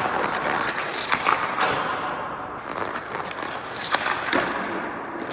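Ice hockey skates scraping and carving on rink ice, with sharp clacks of a stick striking a puck several times, including a shot about four seconds in.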